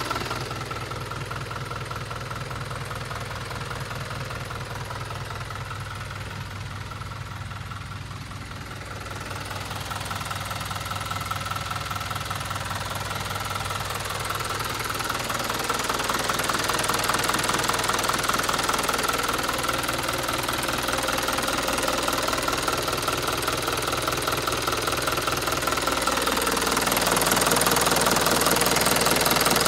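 Mitsubishi 4M51 inline-four diesel engine of a Rosa minibus idling with a steady, even diesel clatter. It grows louder over the second half.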